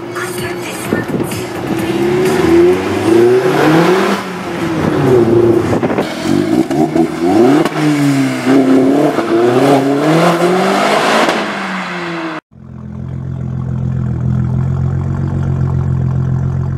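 Car engines revving and accelerating, their notes rising and falling again and again. About three-quarters of the way through the sound cuts off abruptly, and a steady low hum follows.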